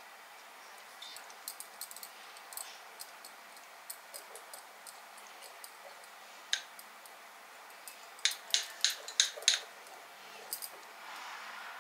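Small hard objects clicking and tapping as they are handled, scattered light clicks with a quick run of about six louder clicks around eight to nine and a half seconds in.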